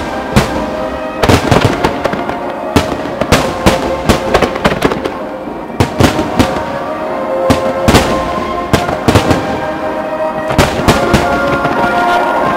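Aerial firework shells bursting in a rapid, irregular string of sharp bangs, over music with long held notes.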